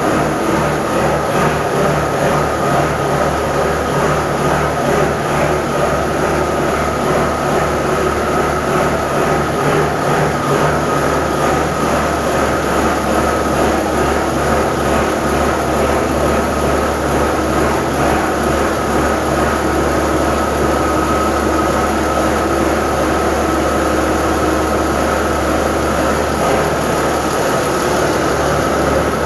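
Peterbilt 351 truck's diesel engine idling cold with a lope, an uneven pulsing exhaust beat, and a thin steady whine above it.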